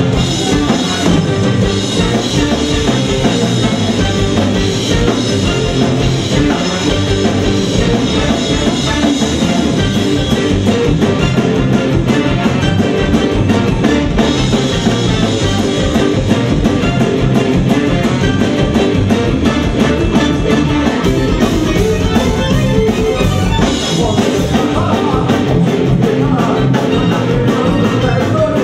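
Live punk-rock band playing a song at full volume: electric guitar, bass guitar and drum kit keeping a fast, steady beat, with a male lead vocal singing into a microphone over them.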